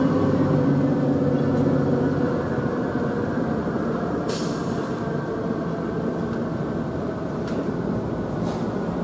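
Seagrave fire engine's diesel engine running low and steady as it moves off in traffic, fading after a couple of seconds, with a short hiss of air brakes about four seconds in.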